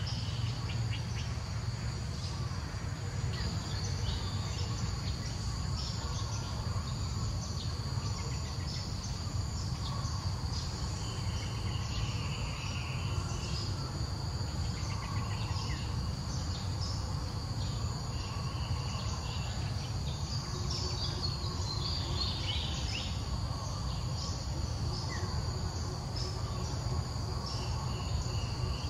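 Insects droning steadily at a high pitch over a low rumble, with a few short high chirps around the middle.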